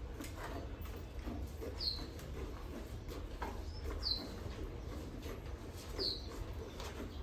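A small bird chirping: three short, high chirps about two seconds apart, each dropping slightly in pitch, over a steady low hum.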